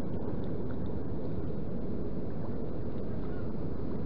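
Steady low rumble of wind on the microphone, with faint light ticks from a spinning reel being wound in while playing a hooked fish.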